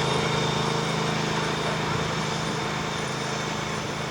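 An engine running steadily with a fast, even pulse, slowly getting a little quieter.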